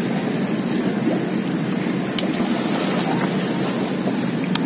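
Steady rushing wind and sea noise at the shoreline, with a couple of faint clicks about two seconds in and near the end.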